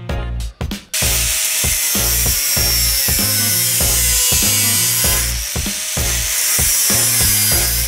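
Angle grinder cutting into the sheet-steel front panel of a classic Mini: a steady, loud grinding noise with a faint whine, starting about a second in. Background music with a steady beat plays throughout.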